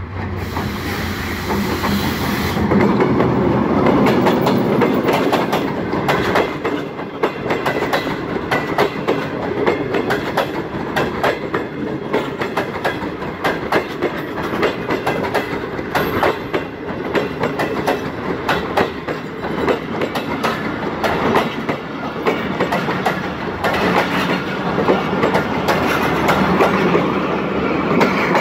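A diesel locomotive passes close by hauling a passenger train: its engine running loud as it draws level about three seconds in, then the coaches' wheels clattering steadily over the rail joints as the train rolls past.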